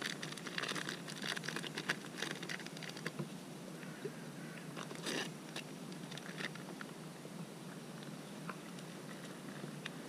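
Plastic packet of dry rice crinkling and crackling as it is handled and opened. The crackles come in dense clusters over the first three seconds and again about five seconds in, then only now and then.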